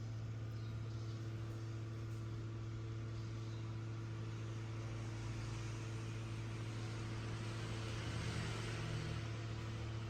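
Steady machine hum with a low drone and a fainter higher tone, over a soft hiss that swells slightly near the end.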